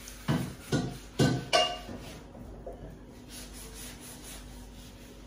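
A wet sponge with detergent water scrubbed across a glossy Deco-painted kitchen cabinet door: four quick rubbing strokes in the first two seconds, then only faint rubbing.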